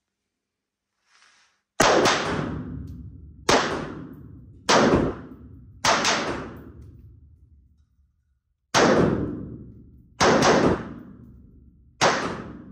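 Saiga .223 semi-automatic rifle fired in single shots, about eight, spaced half a second to three seconds apart, each ringing on with a long echo in an indoor shooting range.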